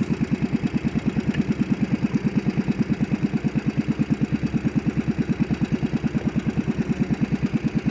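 Small fishing boat's engine running steadily, with an even pulse of about ten beats a second.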